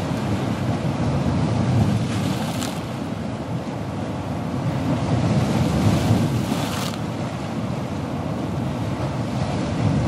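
Ocean waves breaking: a continuous rush of surf that surges louder about two seconds in and again around six seconds.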